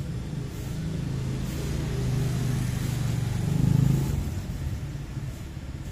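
A motor vehicle engine running as a low, steady hum that swells to its loudest about four seconds in, then eases off.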